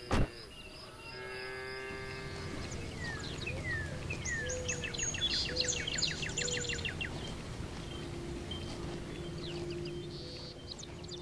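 A pickup truck door slams shut once at the start. Then birds sing and chirp in quick sweeping notes over steady outdoor background noise.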